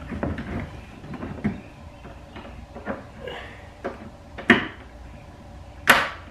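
Polypropylene rear diffuser lip knocking and clacking against the underside of the car's rear bumper as it is pushed up and clipped into place: a handful of irregular sharp plastic clacks, the loudest near the end.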